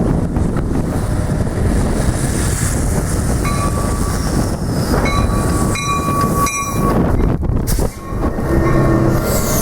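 A train running past close by, a loud continuous rumble of wheels on rail. Two brief high-pitched steady tones sound over it, one about three and a half seconds in and a longer one from about five to nearly seven seconds.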